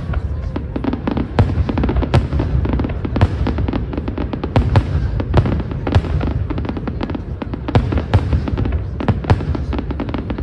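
Aerial fireworks display: a dense, continuous run of shell bursts and crackles, several sharp bangs a second over a steady low rumble.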